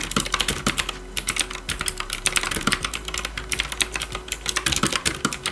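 Fast, continuous typing on a Lemokey P1 Pro mechanical keyboard with pre-lubed Keychron Super Red linear switches: a dense run of keystroke clacks.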